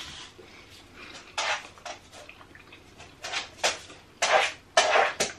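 A pet dog making short bursts of noise several times, coming more often and louder in the last couple of seconds.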